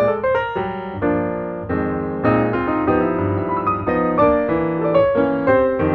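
Piano music playing as a backing track: a melody of quick notes that slows to held chords for a few seconds in the middle, then picks up again near the end.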